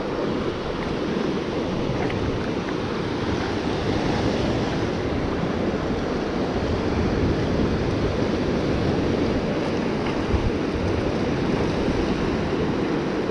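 Ocean surf washing against a rocky shoreline, a steady low rush, with wind buffeting the microphone.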